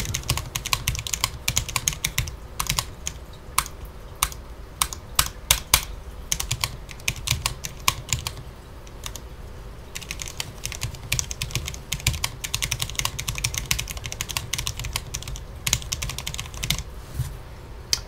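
Fast touch-typing on a Cherry MX 10.0N RGB low-profile mechanical keyboard with MX Low Profile Speed switches. It is a quiet, rapid patter of keystrokes with a brief pause about halfway, and it stops shortly before the end.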